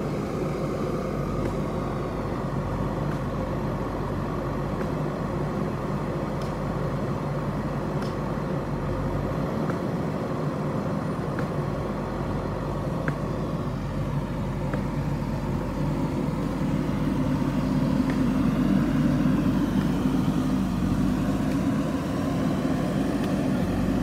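JCB backhoe loader's diesel engine running steadily close by, growing louder and fuller about two-thirds of the way through.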